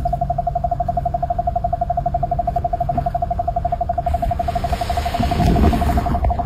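A steady, rapidly pulsing mid-pitched tone that holds one pitch throughout, with a brief low rustle under it about five seconds in.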